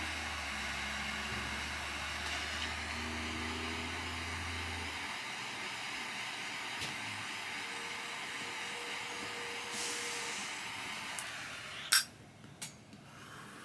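Two-burner Zippo butane torch lighter jetting its flames with a steady hiss while lighting a cigar, cut off abruptly about twelve seconds in.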